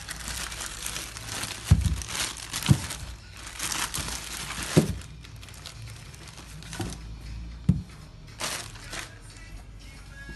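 Clear plastic shoe bag crinkling and rustling as a sneaker is handled and pulled out of a cardboard shoe box, with several dull knocks of the shoe against the box. The rustling is heaviest in the first half and comes back briefly near the end.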